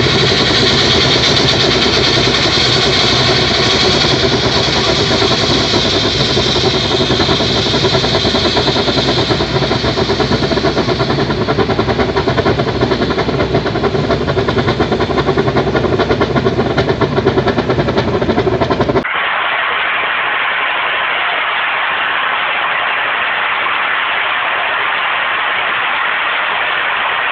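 Open gas well blowout: gas jetting from the well in a continuous roar, mixed with the steady drone of engines. About two-thirds of the way through, a cut switches to a steady rushing noise with little bass.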